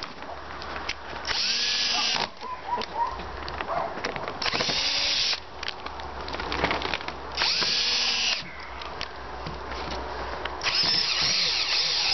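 Cordless drill driving screws into a timber rail in four runs of about a second each, its pitch bending as each goes in, with clicks and rustling between. The screws are being driven back in after each pull, to hold the polytunnel's polythene cover tighter.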